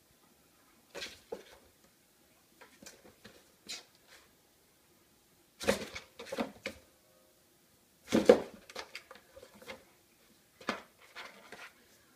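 Cat playing inside a cardboard carton: irregular bursts of scratching, rustling and knocking against the cardboard as the box shifts on a tile floor. The loudest bump comes about two-thirds of the way through.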